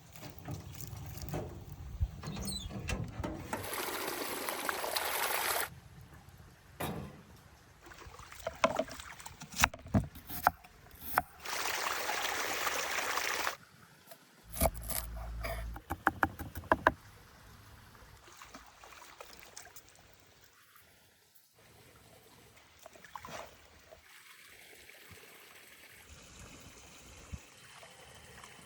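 Water running and trickling in two longer loud spells, among scattered knocks and clicks of hands-on food preparation.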